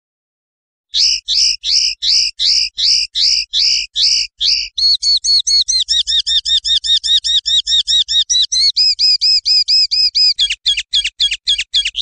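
Common linnet singing. After a second of silence comes a run of rising notes about three a second, then a faster rolling trill of about seven notes a second, and near the end a burst of sharp down-slurred notes.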